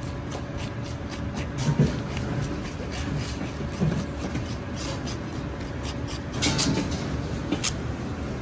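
Metal spoon scraping seeds and stringy pulp out of a raw kabocha squash, in irregular scrapes and soft knocks against the rind. Near the end, a few sharper strokes fit a Chinese cleaver chopping squash on a cutting board. A steady hum runs underneath.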